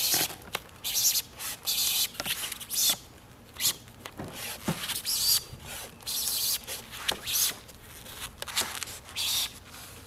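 Foam pool coping being worked by hand into its track at an inside corner, the foam rubbing and scraping against the track in a series of short, irregular strokes.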